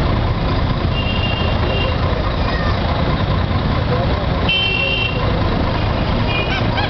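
Dense city street traffic: a steady din of engines, with vehicle horns tooting briefly about a second in, again around the middle, and near the end.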